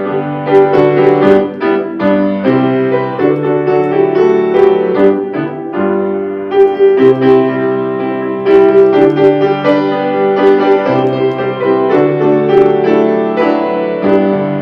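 Piano playing a slow hymn-like piece of held chords and melody notes.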